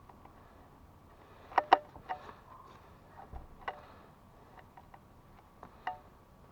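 Scattered light knocks and clicks of something being handled, the loudest two sharp ones close together about one and a half seconds in, with a faint steady hum underneath.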